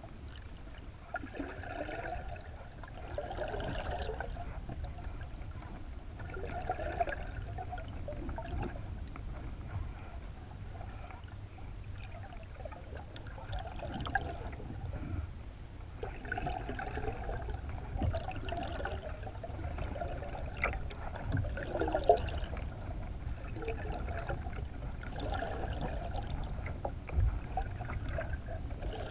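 Water sloshing and gurgling around a GoPro in its waterproof housing mounted under a moving kayak, over a steady low rumble, with swells of splashing every few seconds.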